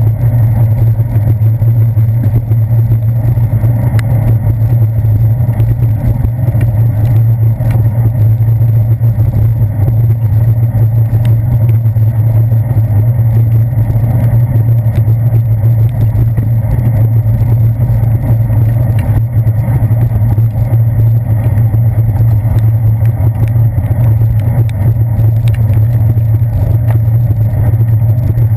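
Steady, loud low rumble of wind and road vibration picked up through a handlebar-mounted GoPro Hero 2's housing as a bicycle rolls along a wet paved path, with a few faint ticks of raindrops hitting the housing.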